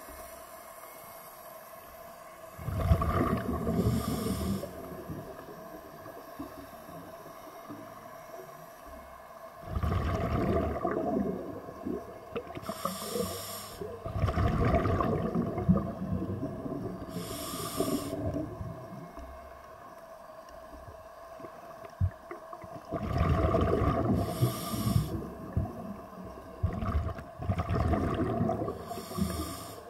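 A diver's breathing through a scuba regulator, heard underwater: about five bubbling, rumbling exhalations several seconds apart, each followed by a short hiss of inhalation, over a faint steady hum.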